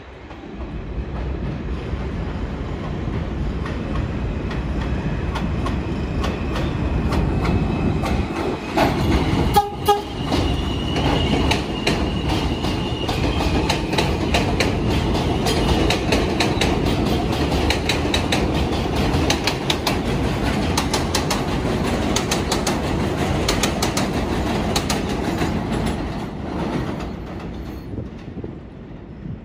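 New York City subway L train passing through the station, its wheels clicking rapidly over the rail joints. The sound builds over the first couple of seconds, carries a steady high whine for several seconds before the clicking quickens, and fades away near the end.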